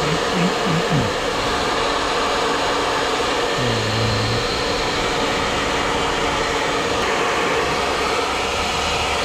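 Hot-air blower running steadily with an even rush of air, heating the glue on a sneaker's upper and sole to reactivate it for regluing.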